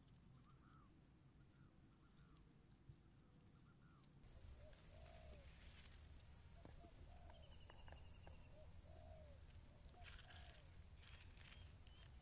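Outdoor ambience: a bird calling in short, repeated arched notes, joined about four seconds in by a sudden, much louder steady high-pitched insect drone that then holds.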